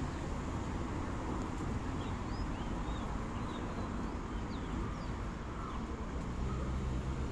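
Steady rumble of city street traffic, with small birds giving a string of short, thin chirps from about two seconds in to past the middle.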